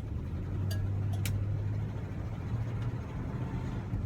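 A 1971 Oldsmobile Cutlass S being driven, heard from inside the cabin: a steady low drone of engine and road noise. A couple of light clicks come about a second in.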